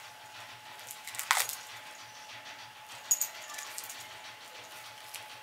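A few sharp metallic clinks and clicks from a metal-bracelet wristwatch being handled, the two loudest about a second and three seconds in, over a faint steady hum.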